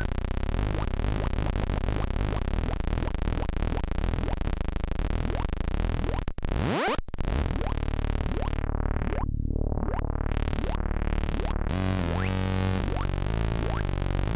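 Studio Electronics Boomstar 4075 analog synthesizer sounding a low, buzzy tone that pulses rapidly. About six seconds in it cuts out briefly with a quick rising pitch sweep, then the tone dulls and brightens again twice as the filter is swept down and back up.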